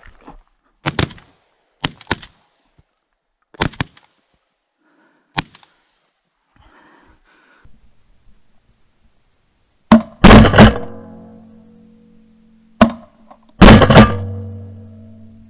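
Shotgun fire at incoming mallards: two bursts of very loud shots, about ten seconds in and again near the end, each followed by a long dying ring and a low hum. A few sharper, quieter clicks come in the first few seconds.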